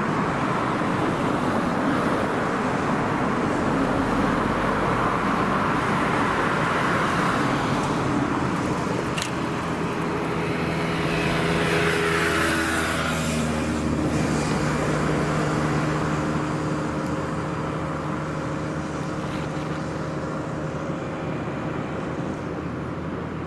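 Steady traffic noise, with a passing vehicle whose whine falls in pitch about twelve seconds in, followed by a steady hum; a single sharp click about nine seconds in.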